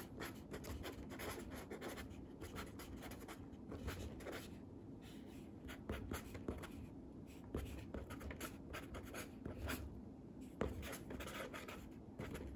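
A red colored pencil scratching across watercolor paper in quick, irregular handwriting strokes, with short pauses between characters.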